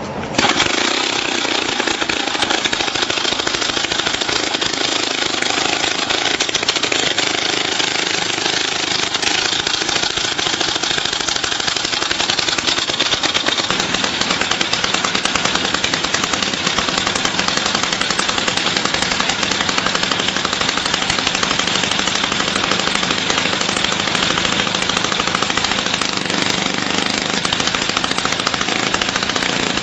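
YN27 two-stroke petrol rock drill running and hammering: a rapid, steady chatter of impacts with the engine's buzz. It starts abruptly just after the beginning.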